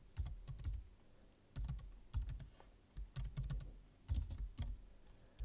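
Keystrokes on a computer keyboard as a word is typed, coming in several short bursts of clicks.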